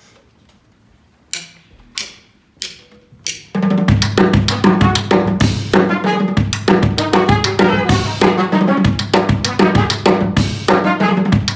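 Four evenly spaced sharp clicks count in, then about three and a half seconds in a live band comes in together: a full drum kit with snare, bass drum and cymbals played hard over a steady bass line.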